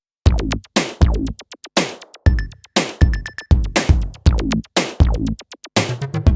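Electronic music with a drum-machine beat of heavy kick drums and crisp clicks, starting about a quarter second in, with a few short high synth notes near the middle.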